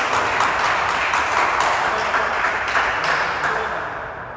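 Players clapping, with a wash of voices, echoing in a large indoor sports hall; it dies away from about three seconds in.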